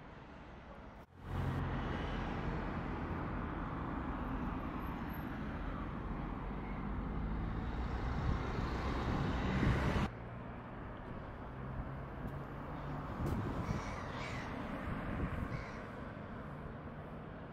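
Outdoor harbourside ambience: a steady low engine-like hum under a wash of noise, cutting abruptly to a new scene about a second in and again about ten seconds in. A few short bird calls come in the last few seconds.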